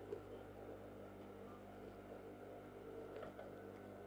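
Faint steady hum, with a few light, soft rustles of fabric being handled.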